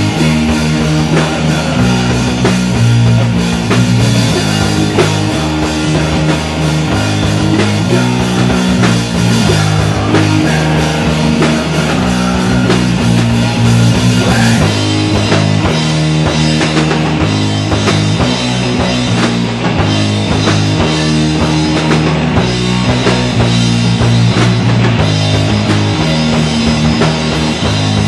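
Live rock band playing loud: electric guitar, bass guitar and drum kit together, driving a riff that repeats over and over.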